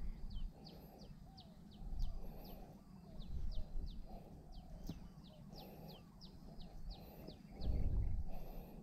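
A bird calling a quick series of short, sharp high notes, each sweeping downward, about three a second, which stop near the end. Low rumbles on the microphone come and go, the loudest one near the end.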